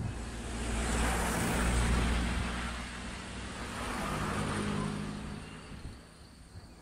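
Vehicle noise: a rushing sound that swells to a peak about two seconds in and slowly fades, over a low steady engine hum that shifts in pitch about four seconds in.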